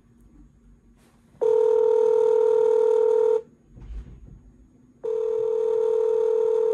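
Ringback tone of an outgoing phone call waiting to be answered: a steady buzzing tone sounds for about two seconds, twice, with a pause of about a second and a half between rings.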